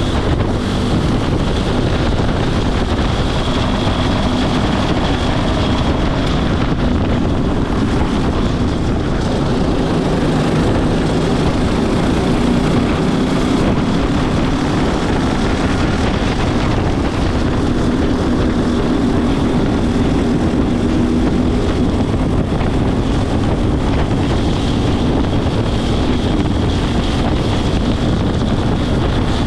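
Racing go-kart engine running hard at speed, its pitch shifting as the throttle comes and goes, with wind buffeting the onboard microphone.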